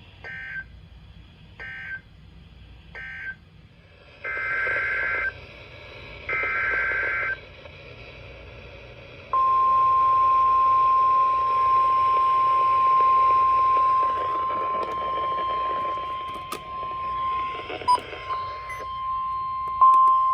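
Emergency Alert System data bursts on NOAA Weather Radio: three short warbling end-of-message bursts, then two longer header bursts about four and six seconds in. About nine seconds in, the loud, steady 1050 Hz weather radio warning alarm tone starts and holds, over faint radio static.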